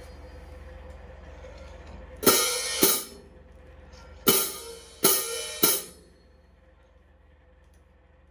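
Paiste 2002 15-inch Sound Edge hi-hat cymbals sounding five times in short, bright bursts, each with a brief shimmer: two close together a little over two seconds in, then three more about two seconds later. A faint steady hum runs underneath.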